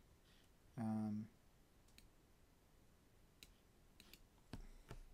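Faint, scattered clicks of a computer mouse and keyboard, several of them in the second half. A short voiced sound from the narrator about a second in.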